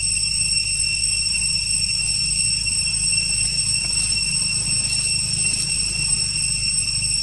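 A steady high-pitched whine held on one pitch, over a low rumble.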